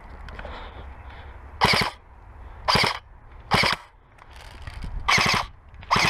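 Airsoft rifle firing on full auto in five short bursts of a few rapid shots each, about a second apart.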